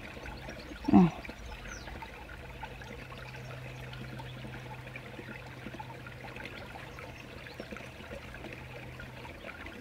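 Shallow stream water trickling steadily. About a second in, a person makes one short vocal sound.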